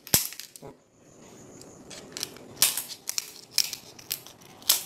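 Scissors snipping through a large mud crab as it is trimmed: a string of sharp, irregularly spaced snips and cracks, about seven in all.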